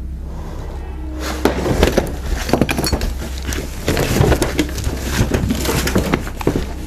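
A steady low hum, then from about a second in a dense, irregular run of clattering knocks and crashes, as of objects banging and breaking.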